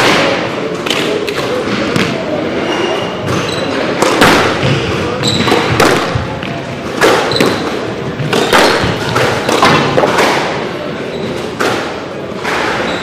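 Squash being played: the ball struck by rackets and smacking off the court walls in sharp, irregular thuds, a few a second, with brief squeaks of shoes on the wooden floor.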